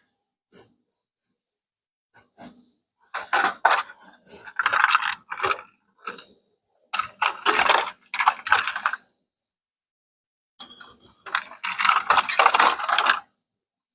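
Hard objects clattering and clinking in three bursts of a couple of seconds each, with a brief high ringing tone at the start of the last burst.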